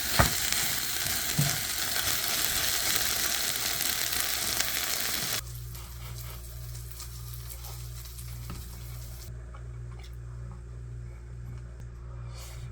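Food frying with a dense sizzle for about five seconds. It cuts off abruptly, leaving a quieter low steady hum.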